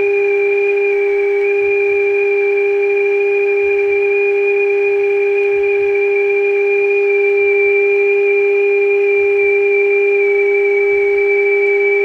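Steady, unbroken mid-pitched test tone from a Zenith AA5 tube radio's speaker: the signal generator's modulated 455 kc IF signal, demodulated and played through the set while its IF transformers are being aligned.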